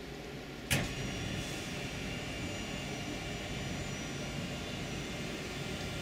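A switch clicks about a second in, and an electric motor starts and runs steadily with a faint whine, driving a power-operated fitting on the Azimut 55S yacht.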